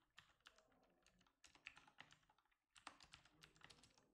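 Quiet typing on a computer keyboard: quick runs of keystrokes with a short pause a little past halfway.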